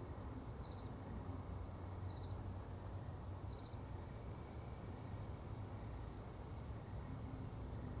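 A cricket-like insect chirping in short, high double pulses about once a second over a low, steady outdoor rumble.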